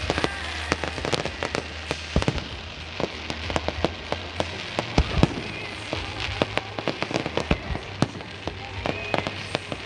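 Fireworks display going off: a dense, continuous crackle of many small pops, with a few louder bangs.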